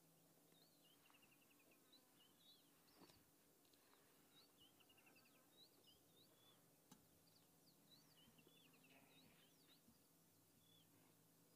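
Near silence with faint birdsong: short chirps and quick trills from small birds, repeated throughout, over a low steady hum.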